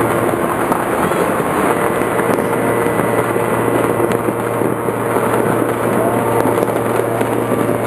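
Many fireworks and firecrackers going off at once in a dense, unbroken din, with no single bang standing out, over a steady low hum.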